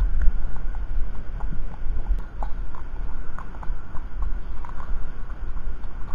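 Thoroughbred horse's hooves landing on a gravel path in light, uneven knocks, over a steady low rumble.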